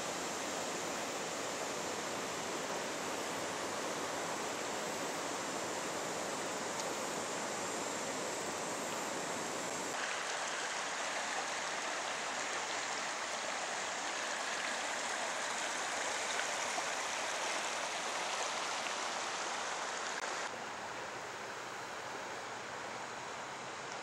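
River water rushing steadily over rocks in shallow rapids. The sound changes abruptly about ten seconds in and drops a little in loudness about twenty seconds in.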